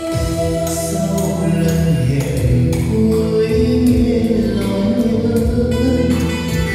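Music with choir-style group singing, played through a hall's line-array PA system as a listening demonstration.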